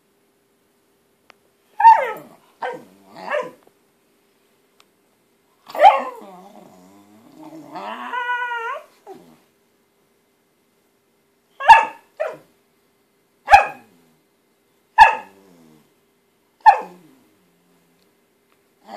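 A Miniature Pinscher barking in short, sharp barks: three near the start, then one more, then five spread out toward the end. After the fourth bark comes a longer drawn-out growl that rises into a whine. These are the frustrated demand barks of a dog wanting a water bottle it has not been given.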